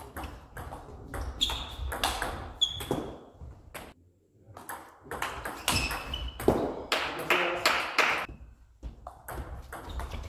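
Table tennis rally: the ball clicking off rackets and table in quick succession, with a short pause about four seconds in before the next rally starts. Short high squeaks of court shoes on the sports-hall floor come between the hits.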